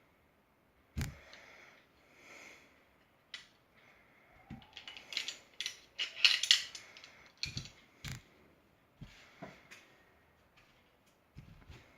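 Glock 17 Poseidon pistol parts being handled: a series of sharp, irregular clicks and clacks of metal and polymer parts knocking and snapping together, busiest in the middle.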